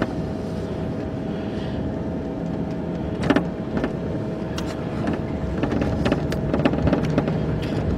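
Inside a car driving slowly over slush and packed snow: steady engine and tyre noise with scattered short knocks and clicks, the loudest about three seconds in.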